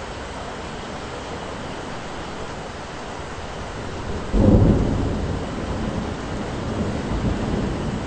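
Steady rain hiss. A little past halfway a sudden loud thunderclap breaks in, and the thunder keeps rumbling unevenly after it.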